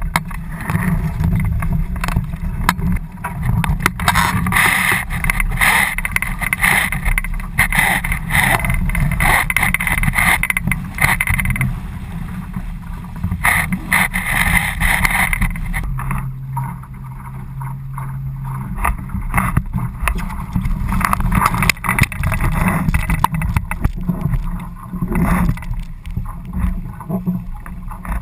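Water rushing and splashing along the hull of a Laser sailing dinghy under way, over a steady low rumble. The hissing spray comes and goes with the waves and drops away for a few seconds about halfway through.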